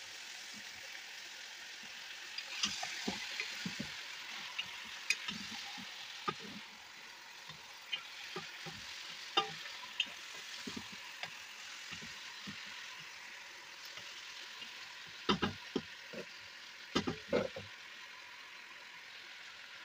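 Bone-in lamb pieces sizzling in hot vegetable oil with onions in a metal pot. Stirring with a wooden spoon brings scattered knocks and scrapes against the pot, with a few louder knocks about fifteen and seventeen seconds in.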